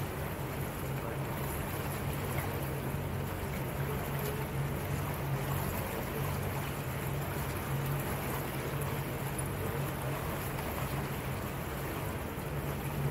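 Motorboat engine running with a steady low hum, over the rush of water.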